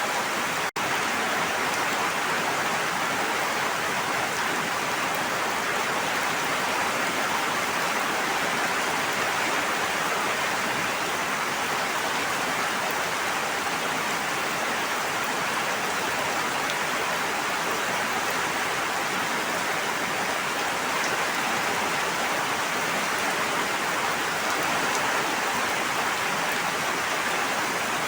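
Steady rushing water, an even hiss with no distinct drops or splashes. There is a momentary dropout less than a second in.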